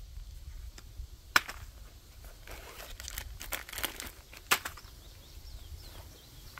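Plastic snack wrappers crinkling and a canvas bag rustling as food packets are handled and set down, with two sharp clicks, about a second and a half in and again past four seconds.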